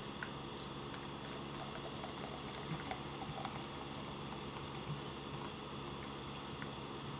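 Carbonated soda in a 2-liter plastic bottle fizzing: a faint, scattered crackle of tiny bubble pops over a steady low hum.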